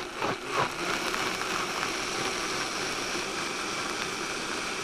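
Countertop blender motor running steadily with a whirring whine, puréeing a thick marinade of scallions, habaneros, onion, spices and liquids.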